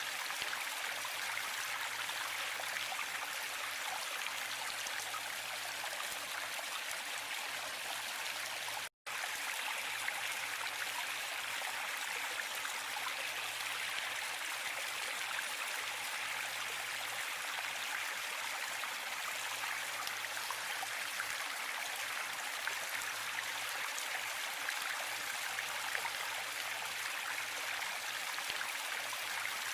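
Steady rushing of a waterfall, an even hiss of falling water, broken by a split-second gap of silence about nine seconds in.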